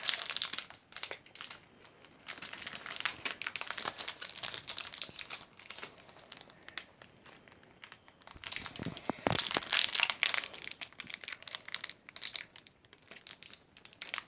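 Foil booster-pack wrapper crinkling as it is handled and pulled at to tear it open, in three bouts with quieter pauses between.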